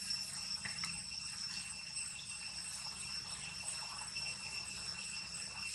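Steady high-pitched drone of insects in the trees, one unbroken tone with overtones, over a low background hum and a few faint clicks.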